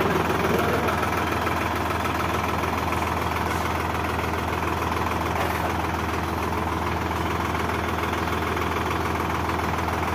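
Sonalika Tiger tractor's diesel engine idling with a steady drone.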